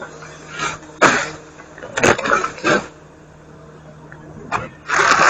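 A dog barking in short, sharp bursts, about five times, over the steady low hum of a garbage truck's idling engine.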